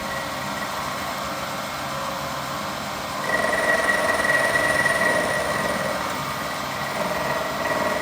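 Milling machine running while its cutter mills a flat on a stainless steel stud. A steady high cutting whine comes in about three seconds in, fades after a couple of seconds, and returns faintly near the end.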